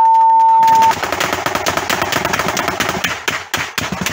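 A steady single-pitch censor bleep for about a second, then dense, rapid automatic gunfire, many shots a second in quick succession from rifles and machine gun in a close-range firefight.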